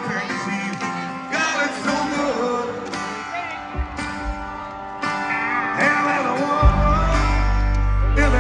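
Live acoustic country music: a male singer over two strummed acoustic guitars. A deep, sustained bass note comes in about two-thirds of the way through and holds to the end.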